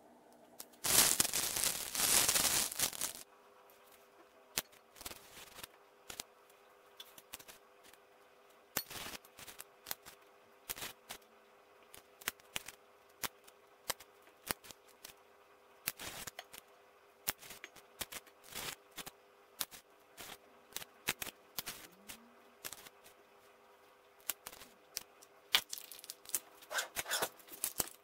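Plastic food packaging crinkling loudly for about two seconds, followed by scattered light clicks and snaps of kitchen handling, with a denser run of clicks near the end.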